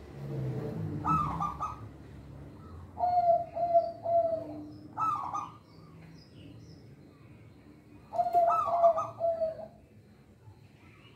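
Zebra dove (perkutut) cooing in repeated phrases. Each phrase is a few short notes, some rising and some level, with pauses of a second or more between phrases. Faint high chirps of small birds can be heard behind it.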